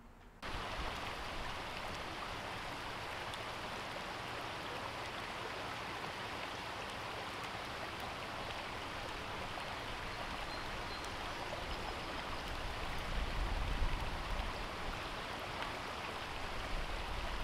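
Shallow stream running over rocks: a steady rush and trickle of water that begins about half a second in, with a low rumble joining it near the end.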